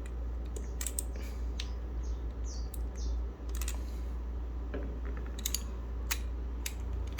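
Irregular, scattered clicks and taps from a Gamakay K61 mechanical keyboard with Gateron Blue switches being pressed and handled, over a steady low hum.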